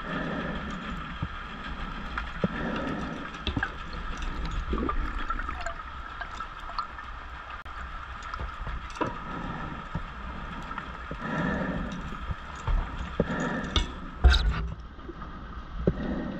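Underwater scuba breathing: swells of bubbling noise every couple of seconds as exhaled gas leaves the regulator, with scattered clicks over a steady faint whine. A sharp knock about fourteen seconds in is the loudest sound.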